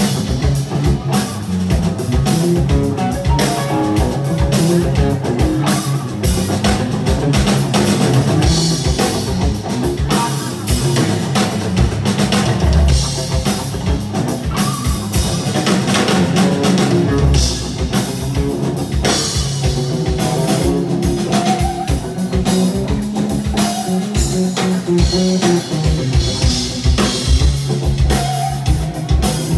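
Live rock band: an amplified electric guitar plays a solo over a steady drum-kit beat.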